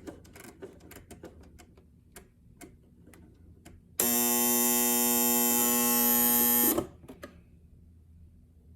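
Alarm buzzer of a 1959 Sylvania Model 598 clock radio sounding: a loud, steady buzz of about three seconds that starts about four seconds in and cuts off abruptly. Faint clicks and crackle come before it.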